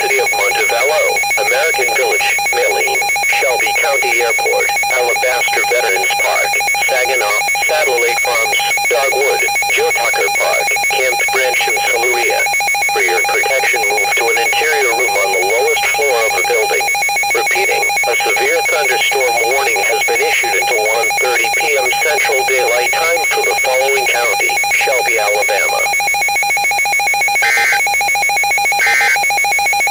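Emergency Alert System severe thunderstorm warning: steady electronic tones run under a warbling, voice-like message. Near the end come three short, identical data bursts about a second and a half apart, the end-of-message signal of an EAS alert.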